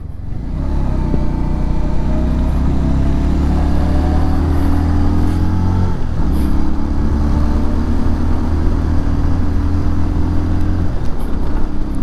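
Single-cylinder Bajaj Pulsar 150 motorcycle engine heard from the bike, revs climbing steadily under acceleration, a brief break about six seconds in at a gear change, then running at steady revs before easing off near the end.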